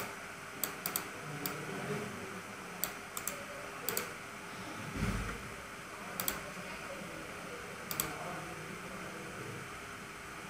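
Computer mouse clicking, about a dozen sharp separate clicks, some in quick pairs, over a steady hiss. A dull low thump comes about five seconds in.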